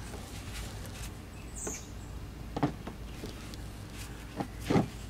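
Hand work at the oil cooler line fitting on an engine oil pan: a shop rag rubbing and a few light clicks and taps of metal. The louder taps come near the end. A steady low hum runs underneath.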